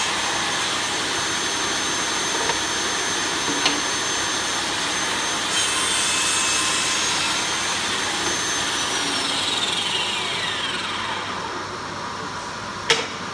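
Mafell ERIKA pull-push saw running as it cuts a mitre through a wooden board, then switched off, its whine falling steadily as the blade spins down. A single sharp knock near the end.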